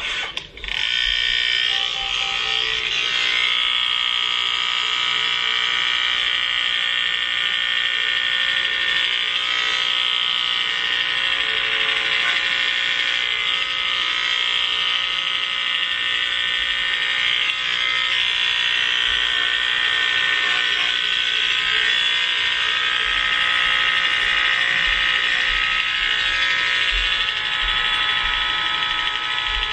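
Electric hair clippers running with a steady, high buzz as they cut through long wavy hair, starting about a second in.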